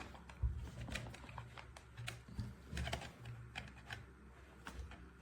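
Faint handling noise from a game controller and its USB-C charging cable: scattered small clicks and a few soft low thumps.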